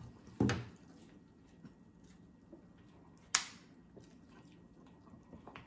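Quiet sounds of people eating a boiled seafood spread, peeling shrimp and crab shell with small faint clicks. A short low thump comes just after the start, and a single sharp snap a little over three seconds in is the loudest sound.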